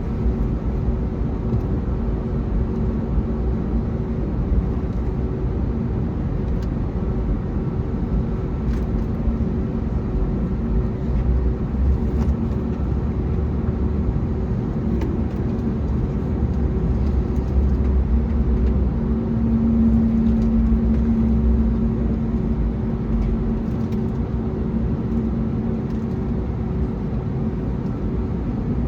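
Cabin noise of an Airbus A321neo with its Pratt & Whitney geared turbofans running at low power: a steady low rumble with a hum over it. The hum grows stronger about two-thirds of the way in and rises again near the end.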